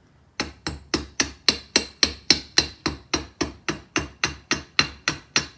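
A hammer tapping on a metal weld in quick, even strikes, about four a second, starting about half a second in: a chipping hammer knocking the slag off a fresh stick weld.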